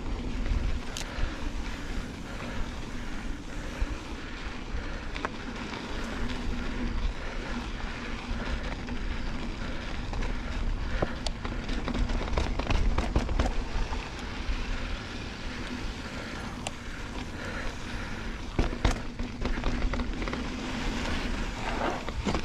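Santa Cruz Bronson mountain bike rolling down a dirt trail: steady wind rumble on the microphone with tyres crunching over dirt, and scattered sharp clicks and rattles as the bike goes over bumps.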